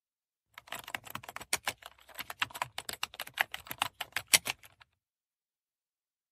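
Computer keyboard typing: a rapid, uneven run of key clicks that starts about half a second in and stops abruptly after about four seconds.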